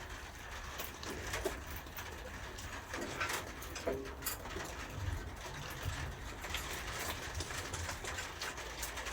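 Scattered light metallic clicks and taps of a spanner working small bolts, with a pigeon cooing in the background.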